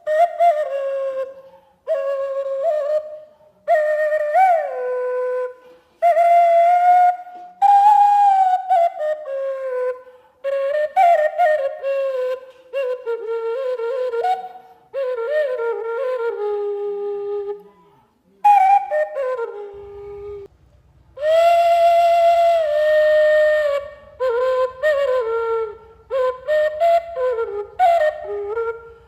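Flute music: a slow, ornamented melody played in short phrases with brief pauses between them. A low, evenly pulsing accompaniment joins about two-thirds of the way through.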